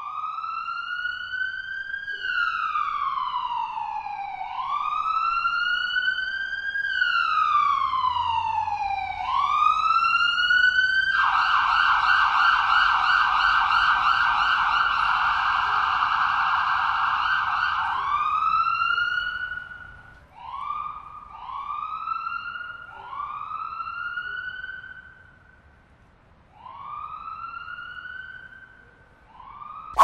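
Ambulance siren recording: an electronic siren wailing in slow rising and falling sweeps that get quicker. About eleven seconds in it switches to a fast yelp, and from about nineteen seconds it gives short separate rising whoops with brief pauses between them.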